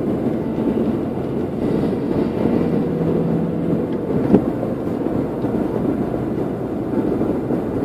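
Steady rumble of a moving car's engine and tyres heard from inside the cabin, with a single short knock about four seconds in.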